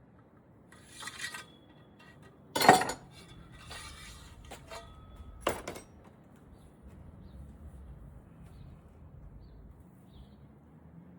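Metal kitchenware clinking and knocking: a few light clinks, one loud knock about two and a half seconds in, and a sharp click about five and a half seconds in, some with a brief metallic ring. The rest is faint background hum.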